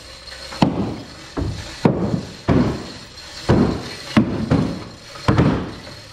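A series of heavy hammer blows, about eight at uneven intervals of roughly half a second to a second, each with a short hollow ringing decay.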